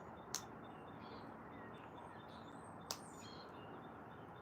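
Faint bird chirps over a steady outdoor background hiss, broken by two short, sharp clicks about two and a half seconds apart.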